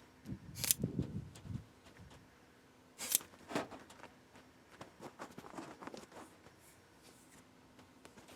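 Sporadic handling sounds: a few short sharp clicks, two of them close together about three seconds in, with some rustling near the start.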